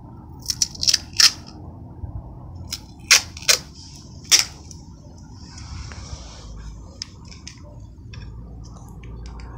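Clear mesh-reinforced repair tape pulled off its roll in short, sharp crackling tugs, about eight of them in the first four and a half seconds, then a longer, softer unrolling pull about six seconds in and a few faint ticks as it is wrapped around a wooden hammer handle.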